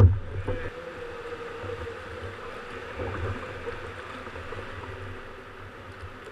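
Sea water sloshing and lapping around a kayak inside a sea cave, over a steady low rumble. A single sharp knock right at the start is the loudest sound.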